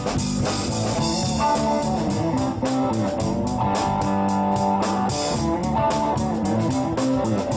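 Rock band playing an instrumental guitar passage, with electric guitar and bass over a steady drum beat.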